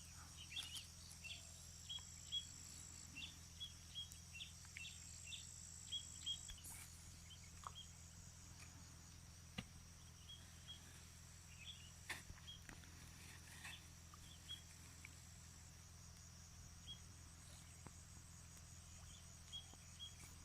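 Faint outdoor insect chorus: a steady high-pitched drone with short repeated chirps, thick in the first seven seconds and sparser after, and a few light clicks.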